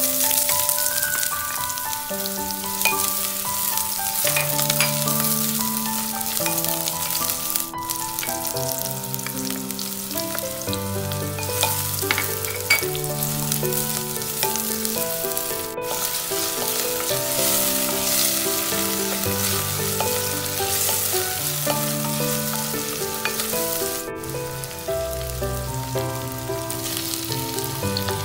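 Chopped onion and garlic sizzling steadily in hot oil in a clay pot while being stirred, over soft background music. The sizzle breaks off for an instant three times.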